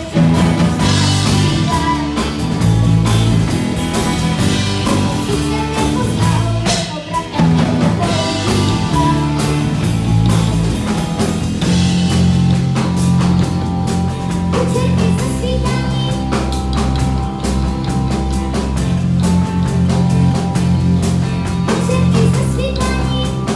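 Live rock band playing a pop-rock song: drum kit, electric bass and guitars, with a boy singing lead into a microphone.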